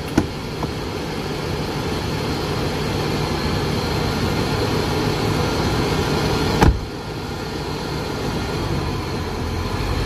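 A motor vehicle driving, with a steady engine drone and road noise. There is a sharp knock about two-thirds of the way through.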